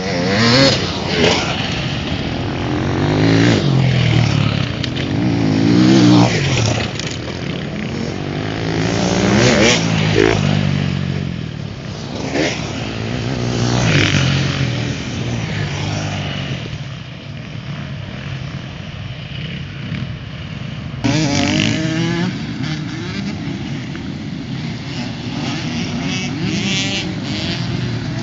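Enduro motorcycles racing past one after another, engine pitch rising and falling as each rider accelerates and backs off, with several loud passes through the stretch.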